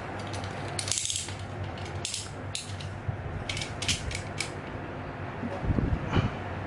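A small knife scraping and clicking at the molded plastic sleeve of a headphone jack plug, in a string of short scrapes, with a dull bump near the end and a steady low hum underneath.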